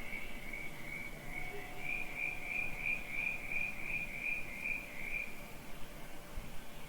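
Cricket chirping in an even rhythm of about three chirps a second, growing louder, then stopping about five seconds in.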